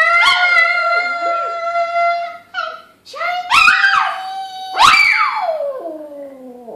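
A Maltese dog howling along with a girl's high sung notes in long held tones. Near the end one long howl slides down in pitch and fades out.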